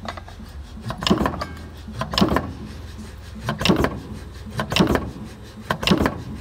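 Strippit Super 30/30 CNC punch press cycling its ram five times, about a second apart, as the foot pedal is worked. Each stroke is a sharp, loud clunk over the steady low hum of the running machine.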